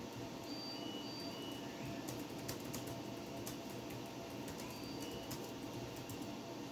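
AMD K5 desktop PC running: a steady hum, with scattered sharp clicks and a few short, high beep-like tones.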